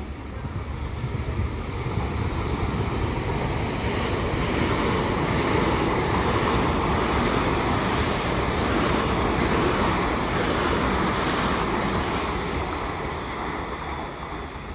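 Electric multiple-unit passenger train running past at speed close by: a rushing rumble of wheels and air that swells to its loudest about halfway through, then fades as the train draws away.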